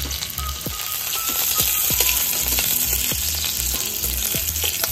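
Chopped green chillies sizzling in hot oil in a metal kadai, with a metal spatula clicking and scraping against the pan as they are stirred.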